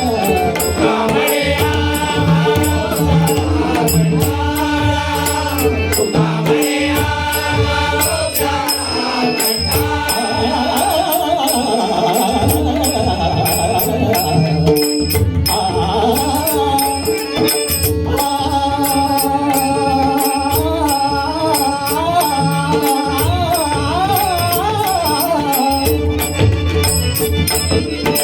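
Marathi abhang bhajan music, live: a steady held drone and a wavering, ornamented melody over a hand drum and small cymbals keeping an even beat.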